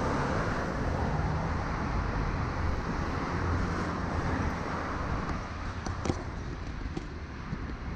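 Road traffic on an adjacent city street: cars passing with a steady low rumble and tyre noise, easing off a little in the second half. A few light clicks about six seconds in.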